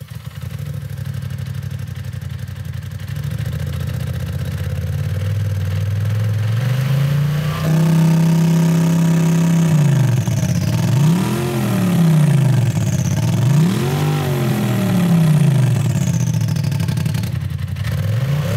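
Polaris RZR Turbo S's turbocharged twin-cylinder engine heard at a tailpipe fitted with an exhaust cutout. It runs at idle, climbs to a steady higher speed held for a couple of seconds, then is revved twice in quick blips that rise and fall, with another rev starting near the end.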